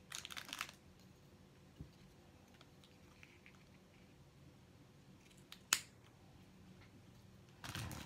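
Faint handling noises from small work at a bench: a short crinkly rustle at the start, one sharp click a little before six seconds in, and more rustling near the end.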